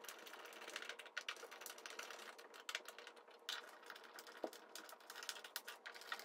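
Phillips screwdriver turning a screw by hand through a wooden base into a drywall anchor: faint, irregular clicks and scrapes of the bit and screw.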